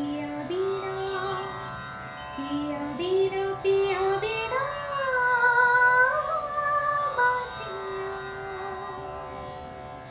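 A woman singing a slow Hindi film-song melody with held, wavering notes over a sustained instrumental accompaniment. The singing ends about three-quarters of the way through, leaving the accompaniment holding one note.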